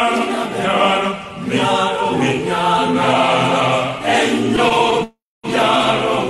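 A chorus of voices chanting together in phrases, cutting out completely for a moment about five seconds in.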